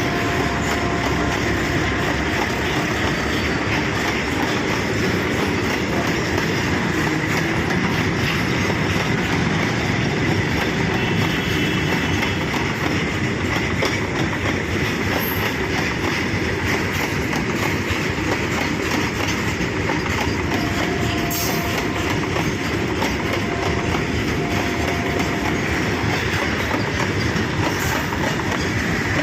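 Freight train wagons rolling past steadily on the track, with brief faint squeal tones now and then.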